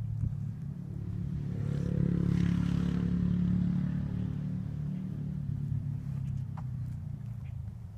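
An engine passing by, growing louder to a peak about two to three seconds in and then slowly fading away.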